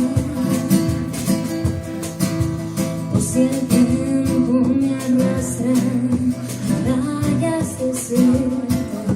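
Acoustic guitar strumming chords with a cajón beating out a steady rhythm, a live instrumental passage between sung lines.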